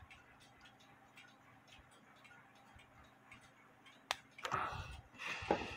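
Faint, quick, even ticking of a clock running in the workshop. A sharp click about four seconds in and louder handling noise near the end as the brass wheel is handled.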